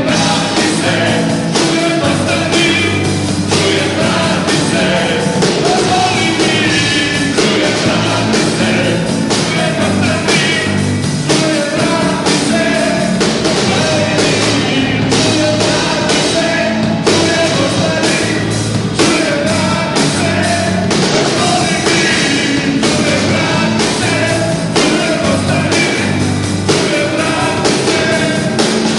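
Live rock band playing: drum kit, electric bass and electric guitar, with a man singing into a microphone over them.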